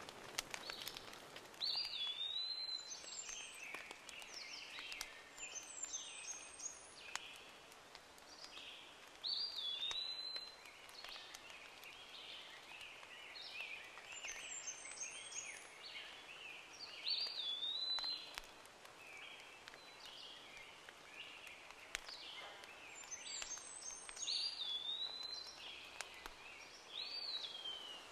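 Wild songbirds singing: a short phrase of a swooping note followed by quicker lower notes, repeated every few seconds, with thin high chirps, over a soft outdoor hiss.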